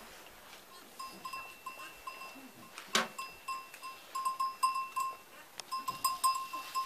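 A small metal bell on a goat clinks in quick, irregular strokes as the goats and kids jostle about. There is one sharp click about three seconds in.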